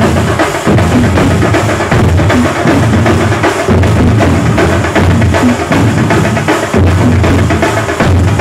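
A large ensemble of Kerala thambolam-style barrel drums beaten together in a loud, fast, driving rhythm, with deep booming strokes and cymbals over them.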